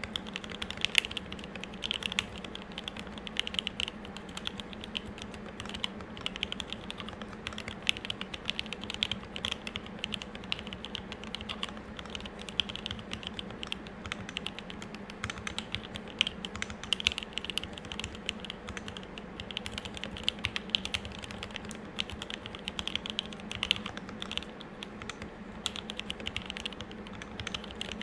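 Continuous fast typing on an M65-A custom mechanical keyboard with a brass plate, lubed and filmed Tealios 67g linear switches and GMK keycaps: a dense, uneven stream of key clacks with no pauses.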